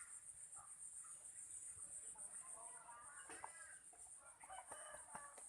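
Faint chicken clucks: a few short calls about the middle and again near the end, over a steady high-pitched buzz.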